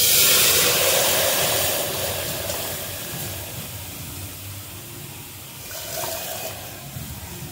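Hot butter-and-ghee tadka poured into a pressure cooker of chickpea curry, sizzling loudly at once and dying away slowly, with a second, smaller flare of sizzling about six seconds in.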